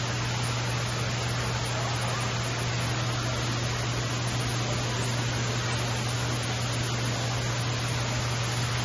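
Steady low hum over an even hiss, a constant background drone with no distinct events.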